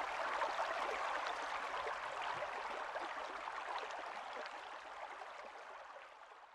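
Flowing river water, a steady rushing wash with fine trickling and lapping detail, fading out gradually until it is gone.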